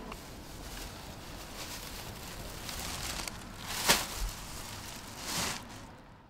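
Plastic bag stuffed with paper receipts rustling as it is handled, a sharp knock about four seconds in as it goes into a plastic wheelie bin, and a softer thump near the end as the bin lid shuts.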